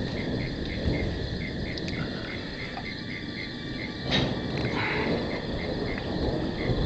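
Crickets chirping in a steady pulse, about three to four chirps a second, over a low background rumble. A brief sharp noise cuts in about four seconds in.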